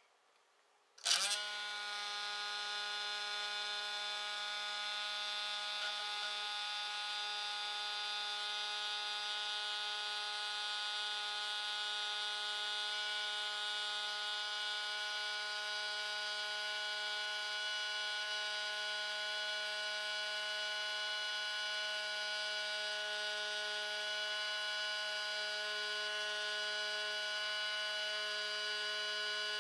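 Small electric motor spinning the magnet rotor of a Delayed Lenz Effect test bench. It switches on with a click about a second in and then runs at a steady speed: a steady whine of several tones over a low hum.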